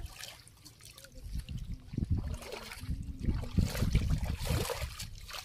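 Shallow water splashing and trickling as a person wades and handles a cast net, quiet at first and busier from about two seconds in.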